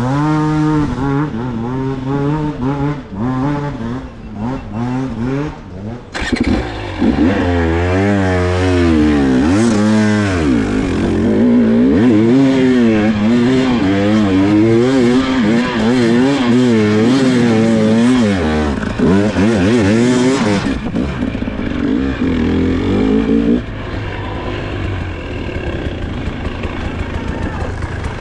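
Dirt bike engine revving up and down over and over, its pitch rising and falling with each twist of the throttle. It is louder and harsher from about six seconds in until about twenty seconds, then settles to a lower, steadier running.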